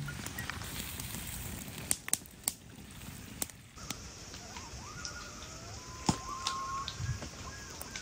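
Campfire crackling and popping under a skillet for about the first four seconds; then common loons calling, a long held wail and wavering tremolo calls.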